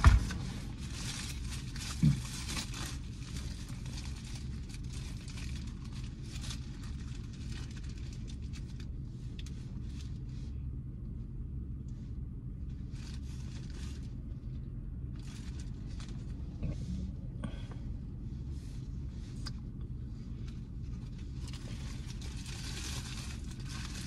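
Paper burger wrapper crinkling and rustling in the hands, with bites and chewing, over the steady low hum of an idling car in the cabin. A sharper rustle about two seconds in.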